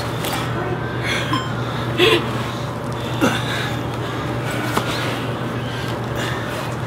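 People breathing hard from exertion while working out, with a few sharp exhalations, over a steady low hum.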